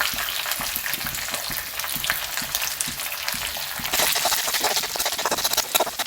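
Onions and black peppercorns frying in hot oil in a pan, sizzling and crackling as they are stirred; the sizzle grows louder about four seconds in.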